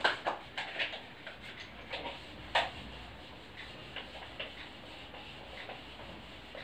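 Whiteboard eraser wiping marker off the board in quick strokes, heard as a run of short scuffs and taps. The loudest comes about two and a half seconds in, with fainter ones after.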